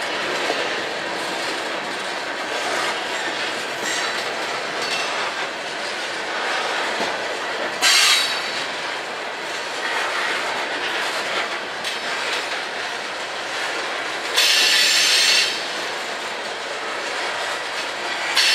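Freight train hopper cars rolling past, a steady clatter and rumble of wheels on rail. Three short, louder bursts of high-pitched noise cut in, about eight seconds in, around fifteen seconds in, and at the very end.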